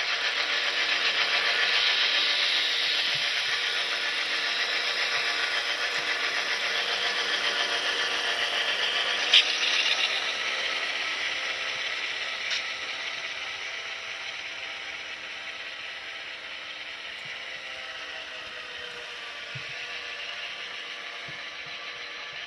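HO scale Athearn Genesis FP7 model locomotive running slowly along the track, its wheels and gear drive making a steady mechanical whirring rattle, with the low steady drone of its DCC sound decoder's diesel engine beneath. It gradually grows fainter from about halfway through, and there is one sharp click about nine seconds in.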